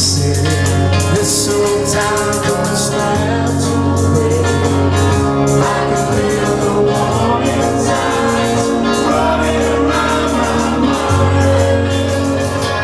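A song with singing over a full backing: a steady beat and a bass line that changes note every couple of seconds.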